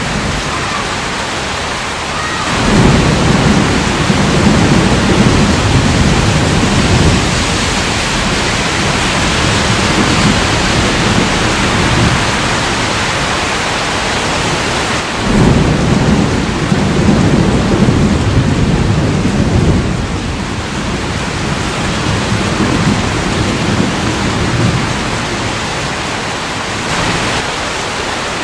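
Steady rain in a thunderstorm. Low rolling thunder sets in suddenly about two and a half seconds in and again about fifteen seconds in, each rumble lasting several seconds and standing out as the loudest part.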